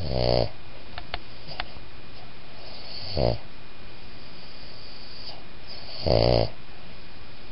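Boston Terrier–pug cross dog snoring in its sleep: three short snores about three seconds apart, over a steady hiss.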